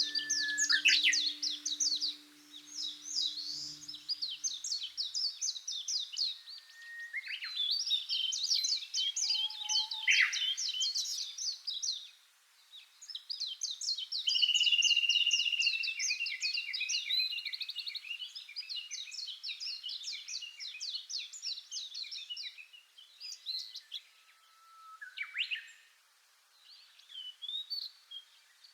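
Birdsong: small birds chirping in fast trilling runs of notes, with a few sweeping whistles and one longer held note midway. The last of a soft background music track fades out in the first few seconds.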